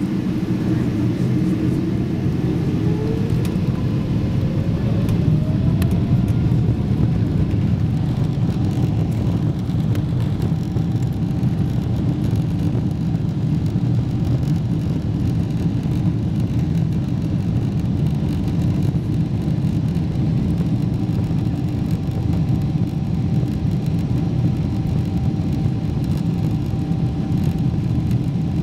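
Boeing jetliner's engines heard from inside the cabin: a steady low rumble with a whine that rises over the first several seconds and then holds steady as the engines spool up.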